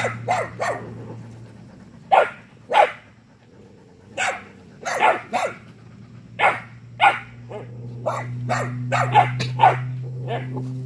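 Mixed-breed working-dog puppies (kelpie–border collie type) barking at a rooster: a string of short, sharp little barks, irregularly spaced, coming thicker and faster in the last few seconds.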